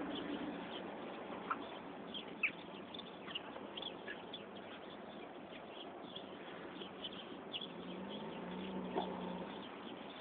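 Faint outdoor background noise with many scattered, very short high-pitched chirps, and a faint low hum near the end.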